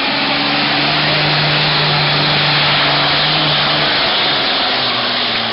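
Diesel engine of a semi-tractor pulling truck at full power, dragging a weight sled, loud and steady. Its pitch drops a little about four seconds in as the truck bogs down.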